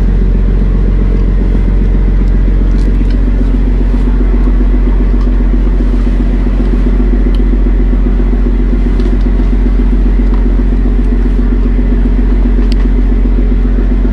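Fishing boat's inboard engine running with a steady low rumble, with a few faint clicks of chopsticks and bowls on top.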